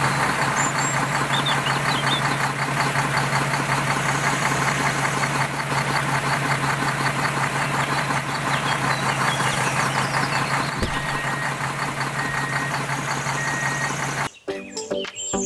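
An engine running steadily with a fast knocking patter over a low hum, cutting off abruptly near the end.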